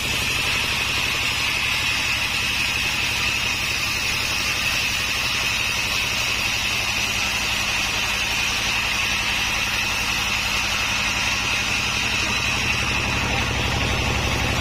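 Homemade sawmill running steadily: a rapid low engine beat under a constant high whine.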